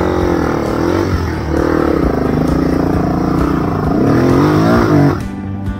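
Honda XR250's single-cylinder four-stroke engine revving up and down on the trail, its pitch rising and falling with the throttle. It cuts off abruptly about five seconds in.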